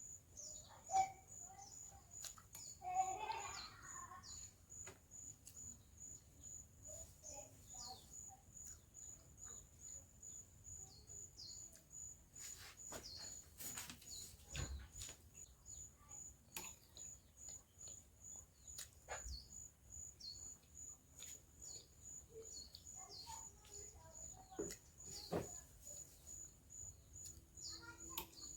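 Cricket chirping steadily at about two chirps a second, with a short bird call about three seconds in and scattered small clicks and knocks.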